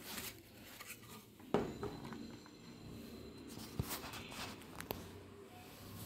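Handling sounds of circuit boards and a clear plastic storage box on a table: a few light clicks and knocks, the sharpest about one and a half seconds in, over faint rustling.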